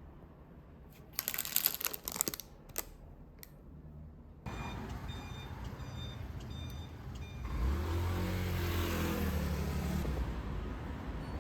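A few sharp clicks and rustles, then street ambience with short repeated electronic beeps, then a road vehicle's engine running, its pitch shifting as it accelerates.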